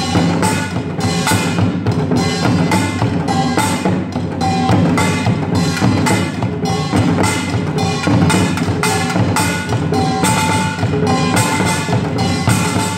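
Samul nori percussion ensemble playing: kkwaenggwari small gongs clanging over janggu hourglass drum and buk barrel drum strokes in a steady, dense rhythm.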